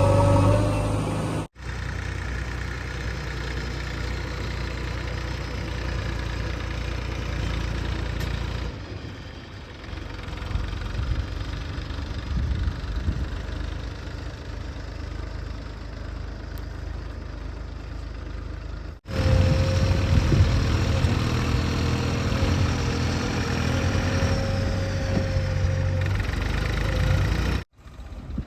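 JCB 3DX backhoe loader's diesel engine running steadily under work, with a steady whine at times. The sound breaks off and jumps in level abruptly at a few edit cuts.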